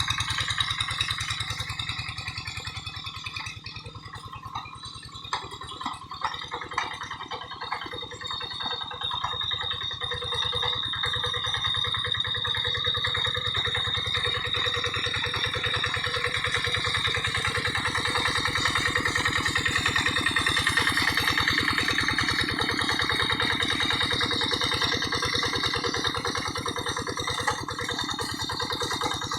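Single-cylinder diesel engine of a Quick G1000 hand tractor running steadily. It dips quieter for a few seconds near the start, then holds an even level.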